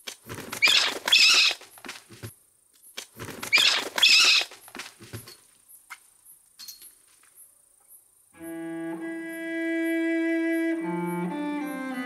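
Two loud bursts of commotion, each about two seconds long and a second apart, as a Eurasian eagle-owl attacks caged birds through an aviary's wire mesh. Cello music with a long held note comes in about eight seconds in.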